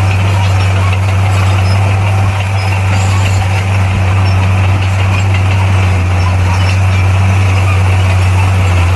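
Bulldozer's diesel engine running steadily with a deep, even drone.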